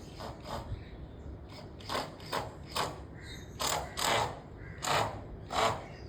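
Bird in an aviary giving a series of short, harsh, raspy calls, about eight of them, irregularly spaced and louder in the second half.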